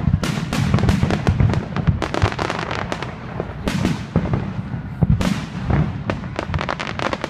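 Fireworks display: a rapid barrage of crackling pops and sharp reports over deep booms from shells bursting.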